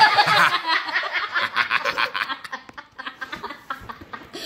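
Hearty laughter: a fast run of breathy laughs that dies away over the last second or two.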